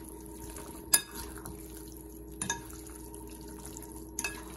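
Chopsticks and a metal spoon tossing chunks of raw beef in a glass mixing bowl, working the marinade into the meat, with three sharp clinks of utensil on glass, the loudest about a second in, over a steady faint hum.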